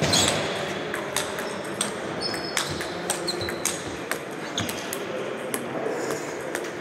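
Table tennis balls clicking off bats and tables in a rally, a string of short, sharp clicks at irregular spacing with a louder one at the start. More clicks come from rallies on neighbouring tables.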